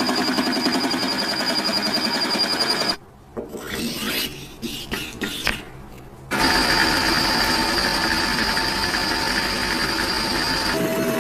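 An electric power tool runs steadily with a high whine. About three seconds in it stops for a few seconds, leaving only a few light metal clinks and handling knocks, then starts again and runs on, its tone shifting lower near the end.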